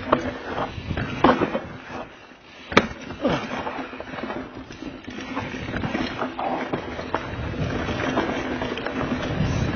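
Diamondback Mission mountain bike rattling and clattering down a rough, rooty dirt trail, with repeated knocks from the bike over roots and rocks and one sharp crack about three seconds in.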